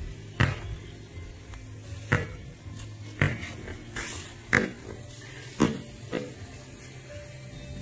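Basketball dribbled on a concrete driveway: six hard bounces at uneven spacing, roughly a second apart, over a steady low hum.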